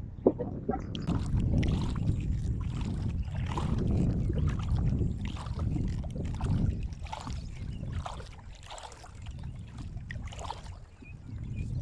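Kayak paddle strokes, the blades dipping and splashing in rhythm, about one stroke every half to three-quarters of a second, over a steady low rumble of wind on the microphone. A sharp knock sounds just after the start.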